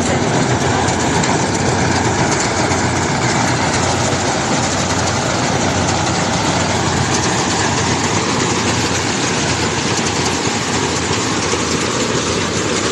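Rice combine harvester running: a loud, steady engine and machinery din that holds even throughout.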